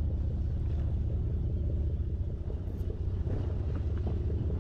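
Sportfishing boat's engine running with a steady low drone, with a few faint clicks on top.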